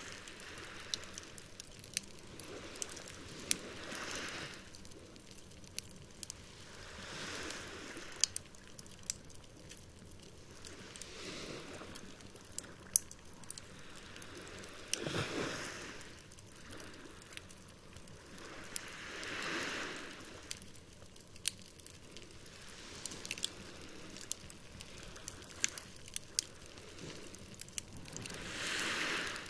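Wood campfire crackling, with scattered sharp pops. Behind it, waves wash in on the shore, swelling and fading about every four seconds.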